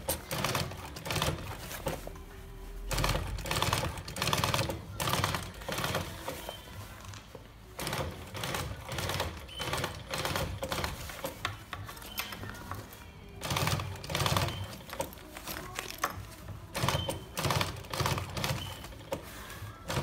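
Industrial sewing machine stitching heavy sail fabric: fast rapid-fire clatter of the needle running in bursts, stopping and starting several times as the fabric is guided.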